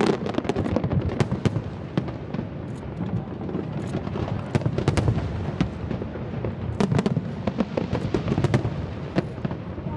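Aerial fireworks bursting: a dense run of bangs, pops and crackling, with clusters of sharper reports about a second in, around five seconds in, and again near seven to eight seconds in.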